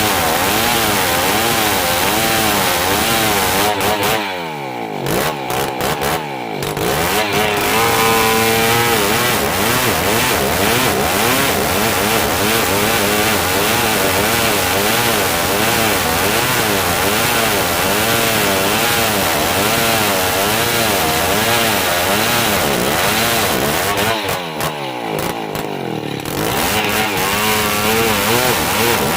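An old chainsaw running hard while sawing dry merbau hardwood, its engine pitch wavering up and down under load. Twice, about four seconds in and again about five seconds before the end, the revs fall off and then climb back up.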